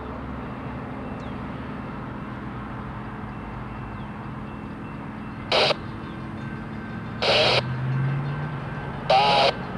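Diesel engine of an approaching CSX SD70M locomotive, an EMD two-stroke V16, running with a steady low drone that grows a little louder and rises slightly near the end. Four short loud bursts cut in, the first about five and a half seconds in and the last two close together near the end.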